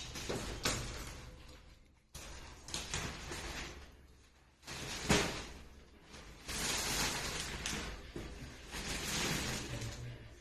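Repeated scraping and rustling of things being handled, each swell starting suddenly and lasting a second or two, with a sharp knock about five seconds in.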